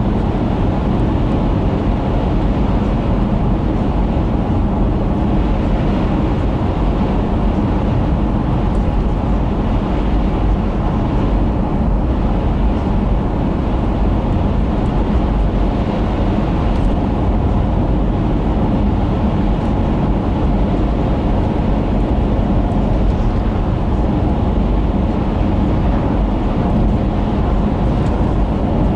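Steady low rumble of a moving car's engine and tyres on the road, heard from inside the car's cabin.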